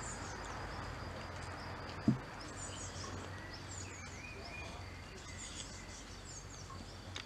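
Outdoor ambience of birds chirping in short, high, falling calls over a steady high insect trill, with a single low thump about two seconds in.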